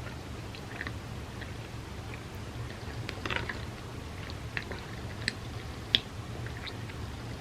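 A person chewing bagel with cream cheese close to the microphone: scattered wet mouth clicks, a denser stretch of chewing about three seconds in, and two sharp clicks near the end, the second the loudest. A steady low hum runs underneath.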